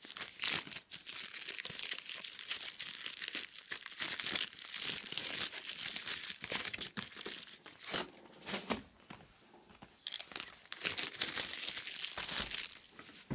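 Plastic shrink wrap being torn off a sealed trading card box and crumpled, crinkling in uneven bursts with a short lull about two-thirds through.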